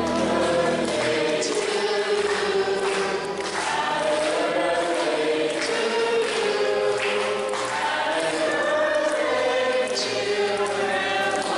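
A group of people singing together, many voices at once.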